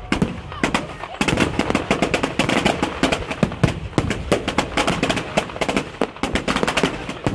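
Fireworks display: a rapid barrage of bangs and crackling from aerial shells bursting, densest from about a second in to about four seconds in.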